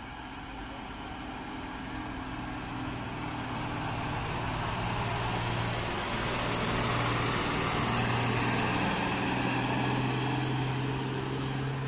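Diesel engine of a large intercity coach running at a steady note as it passes close by, with tyre and road noise. It grows louder as the coach approaches, peaks as it goes past about two-thirds of the way in, then eases slightly as it pulls away.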